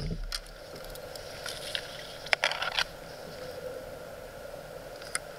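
Plastic kayak on a calm river: steady soft water noise, broken by a few light knocks and splashes, with the loudest cluster about two and a half seconds in and a single click near the end.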